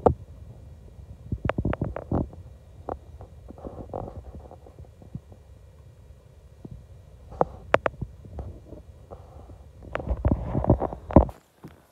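Cat purring close to the microphone: a low throbbing rumble, with scattered sharp clicks and knocks, a louder stretch about ten seconds in, and a sudden cut-off near the end.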